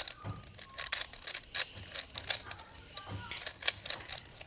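Plastic Rubik's Cube being turned quickly by hand, an uneven run of clicks and clacks as the layers snap round during repeated turn sequences. Faint voices in the background.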